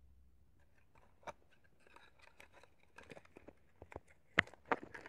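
Plastic-bagged products being handled and rummaged through: scattered light clicks and crinkles, with two sharper clicks near the end.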